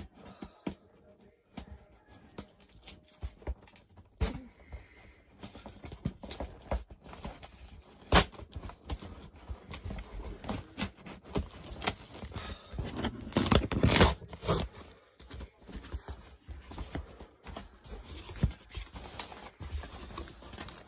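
Cardboard delivery box being handled and opened by hand: scraping, rustling and sharp knocks on the cardboard, with a louder stretch of tearing about twelve to fourteen seconds in.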